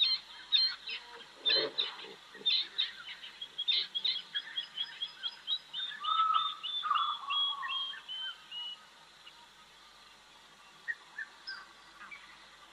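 Several wild birds calling and singing: quick chirps, then a series of about a dozen short notes falling slightly in pitch, with lower whistled notes under it. There is a short low sound about a second and a half in, and after about 9 s only a few scattered chirps remain.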